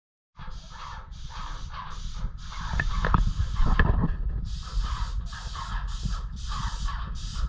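Paint being sprayed in a quick series of short hissing bursts that start and stop again and again, with a steady low rumble underneath.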